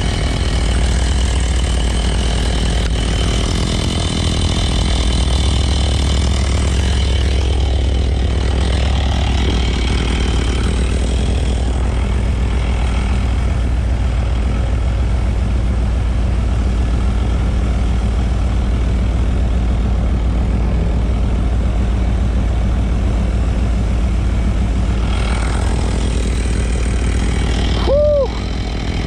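A vehicle engine idling steadily with a low rumble. Near the end a brief squeak rises and falls in pitch.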